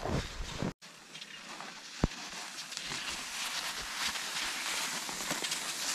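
Cross-country skis sliding over groomed snow: a steady, crackly hiss that slowly grows louder, with one sharp click about two seconds in. Before that, a moment of wind rumbling on the microphone that cuts off abruptly.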